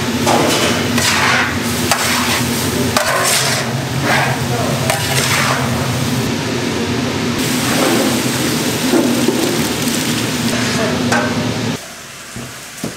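Food sizzling as it is stir-fried and stirred in a pan, with repeated stirring strokes over a steady low machine hum; the sound drops away suddenly near the end.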